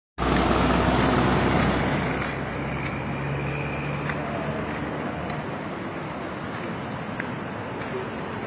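Swollen floodwater of a river in spate rushing past the roadside, heard as a steady rush of water noise. It cuts in suddenly and is loudest for the first two seconds.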